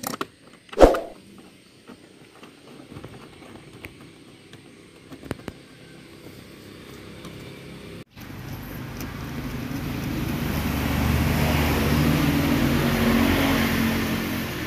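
A sharp metallic clank about a second in, then faint small clicks of a screwdriver working a battery terminal bolt. In the second half a passing motor vehicle's engine swells and then fades.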